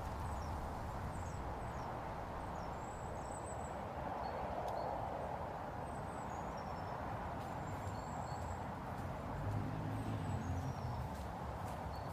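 Outdoor background: a steady hum with a low rumble, and small birds chirping high and faintly now and then.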